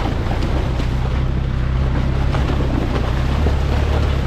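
Off-road 4x4's engine running steadily at low revs as it pushes through a deep, iced-over water crossing, with water and broken ice churning around it.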